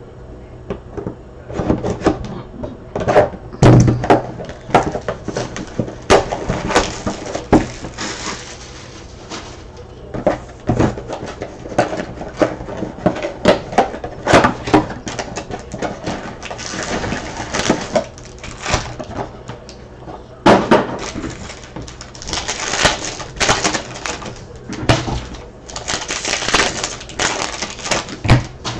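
Sports card packs being torn open and handled: crinkling and ripping of the foil wrappers in several stretches, mixed with clicks and knocks as the cards and packaging are handled.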